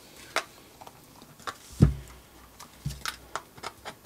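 Hard plastic power-adapter case and its cord being handled: a scatter of small clicks and taps, with a dull thump on the work surface about two seconds in and a softer one a second later.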